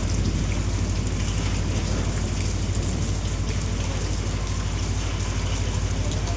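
Heavy rain falling in a steady, even hiss, with a steady low rumble underneath.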